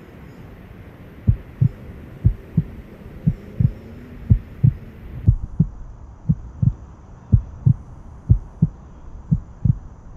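Heartbeat sound effect: pairs of low thuds, about one pair a second, beginning a little over a second in, over a faint outdoor background.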